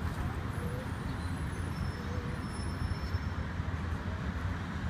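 Steady city traffic noise: a continuous low rumble with a hiss over it.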